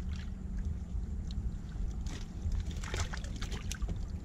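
Water sloshing and splashing around a small boat, with scattered short knocks and splashes and a steady low rumble underneath.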